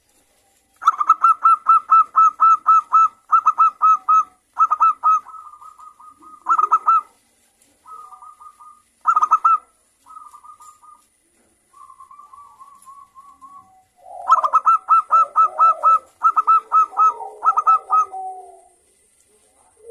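Zebra dove (local perkutut) singing in a clear 'crystal' voice: fast runs of even, evenly spaced cooing notes, in several bursts with softer, shorter runs in between. Near the end a lower cooing overlaps the song.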